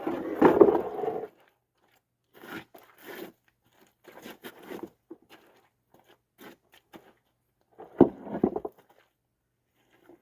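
Bluestone slabs grating and knocking against each other as they are handled and set down. A loud scrape comes at the start, then scattered short scrapes and clicks, then a heavy thud about eight seconds in.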